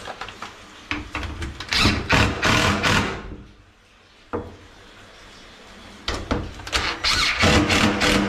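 Ridgid cordless impact driver driving a screw into a cupboard door hinge, in two bursts of about a second and a half each, with short sharp clicks leading into each burst.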